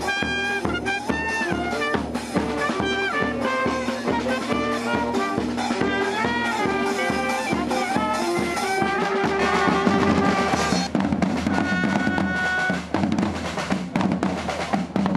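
A street band of saxophones and other horns playing a lively tune over marching bass drums beating a quick, steady rhythm. About nine seconds in the horn tune drops back and the drumming becomes louder and busier.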